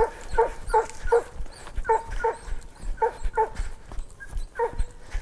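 Hunting hounds barking: about nine short, sharp barks that drop in pitch, mostly in quick pairs, stopping shortly before the end.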